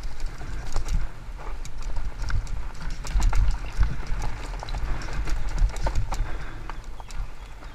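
Fat-tyre mountain bike (Haibike Sduro FullFat Six) rolling fast down a rocky dirt singletrack: a low rumble with irregular clicks and knocks as the tyres hit stones and the bike rattles over the bumps.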